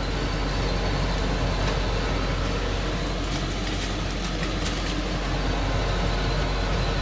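Kitchen extractor fan running with a steady whooshing drone and low hum, over the gas burners under the kebabs. A few faint light taps, such as a basting brush on the rack and foil tray, sound over it.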